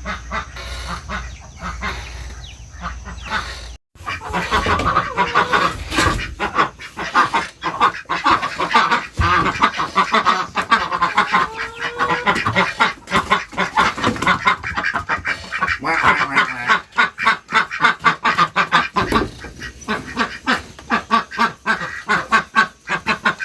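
A flock of farmyard waterfowl calling noisily, a rapid, unbroken stream of quacking and honking calls, with a brief break about four seconds in.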